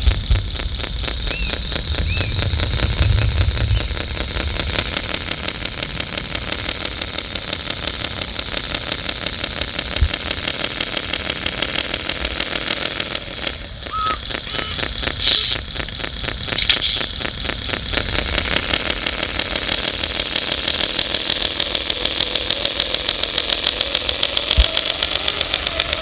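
Radio-controlled MAN 6x6 tipper truck model driving over gravel, its simulated diesel engine running with a fast, even knocking beat.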